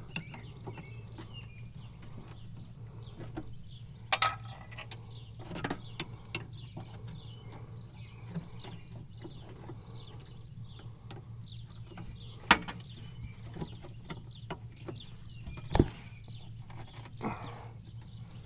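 Wrench work on hydraulic line fittings: scattered sharp metallic clicks and knocks, a few of them loud, over a steady low hum.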